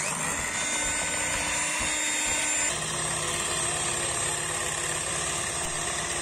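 Electric hand mixer switched on, its motor starting abruptly and then running steadily as its beaters whip a white mixture in a bowl. The motor's tone shifts slightly about two and a half seconds in.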